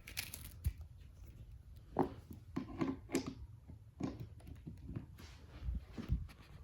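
Wires and a plug being handled and wiggled: irregular rustling with light knocks and clicks.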